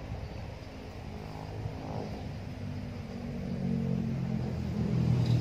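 A motor vehicle engine running, growing louder from about three seconds in as it approaches.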